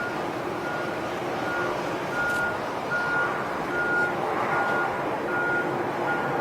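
A vehicle's reversing alarm beeping about once every 0.8 seconds, one steady pitch, over a steady rumble of engines.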